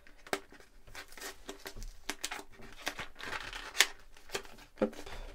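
A small cardboard toy box being handled and opened by hand: cardboard rustling and tearing with scattered sharp clicks and crackles, the loudest a little before four seconds in.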